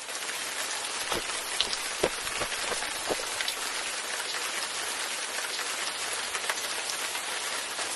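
Steady rain falling: an even hiss with scattered louder individual drops.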